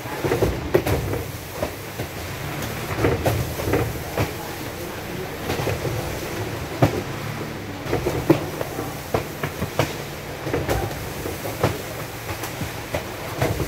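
Cartons being handled, with irregular knocks and thumps over a steady low rumble.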